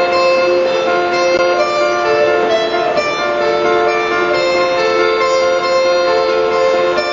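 Instrumental introduction of a song played live, led by guitar, with several notes held at once and the chords changing every second or two.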